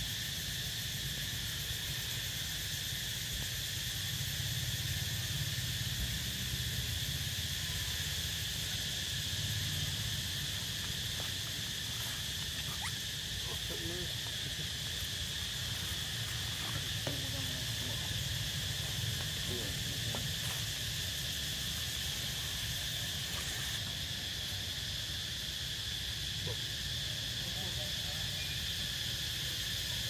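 A steady chorus of forest insects, a constant high-pitched drone that holds without change, over a low rumble. A few faint, short sounds come through in the middle.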